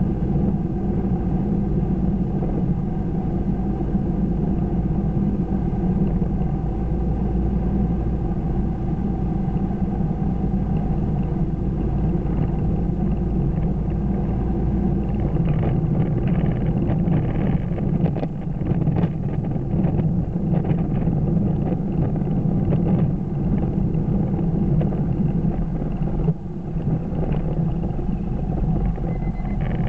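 Car engine and road noise heard from inside the cabin while driving at road speed, a steady drone with a low rumble. About halfway through, a run of light irregular knocks or rattles sits over it.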